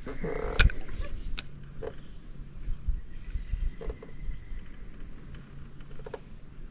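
Spinning reel being cranked during a lure retrieve, with soft clicks and a sharp knock about half a second in, over a steady high-pitched insect drone.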